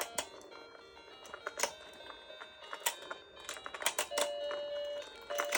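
Tinny electronic tune from a toy fishing game, with irregular sharp plastic clicks of the fishing pieces and rods knocking together.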